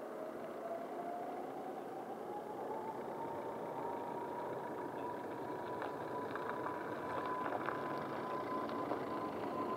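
Airbus A320neo's CFM LEAP-1A turbofans spooling up for takeoff: a whine that rises over the first few seconds, then holds steady over a rumble that slowly grows louder.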